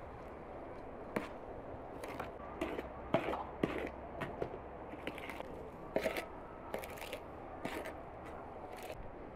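Metal spoon clinking and scraping in a bowl while stirring a dry filling: irregular light knocks, several close together at times, over a steady background hum.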